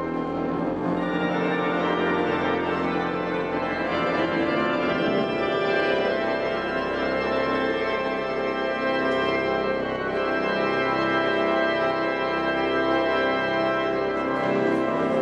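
Pipe organ playing sustained chords.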